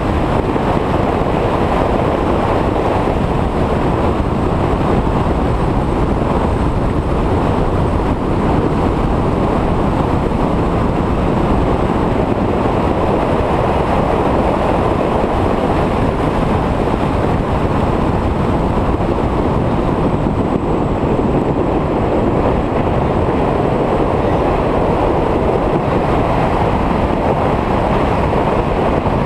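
Steady, loud rush of wind buffeting the microphone of a camera mounted on a 1985 Porsche 911 at track speed, with the car's engine and tyre noise blended underneath.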